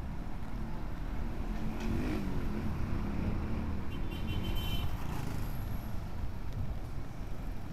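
City road traffic heard from a bicycle: the engines of cars and motorcycles just ahead, over a steady low rumble of wind and road noise on the microphone. An engine note rises and falls about two seconds in, and a brief high-pitched squeal sounds about four seconds in.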